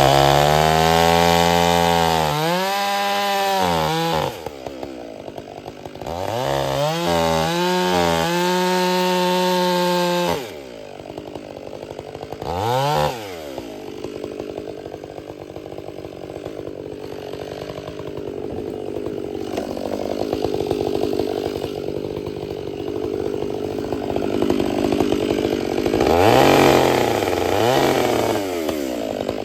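Two-stroke chainsaw bucking wood with a freshly hand-filed chain: two long stretches at full throttle in the first ten seconds, its pitch dipping and rising as the chain works through the wood. Then a short rev, a stretch at a lower steady idle, and one more rev near the end.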